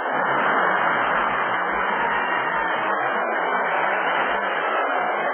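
Large audience laughing and applauding, a steady wash of crowd noise.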